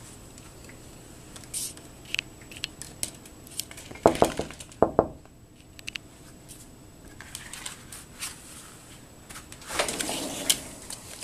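Rustling and scattered clicks from a handheld camera being moved about, with two louder knocks about four and five seconds in.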